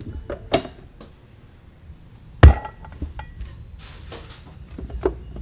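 Clicks and knocks of metal and plastic parts handled while the cast-metal grinding head is fitted onto an electric meat grinder, with one loud thump about halfway through as the camera is set down on the counter. The grinder's motor is not running.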